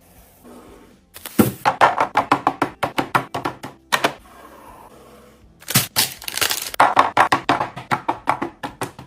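Two quick runs of hard clicks and knocks, several a second, as items are set down and knocked against each other while a fridge or containers are restocked.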